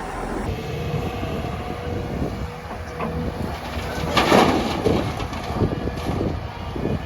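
Heavy diesel machinery running steadily with a low rumble, and a louder rush of noise about four seconds in.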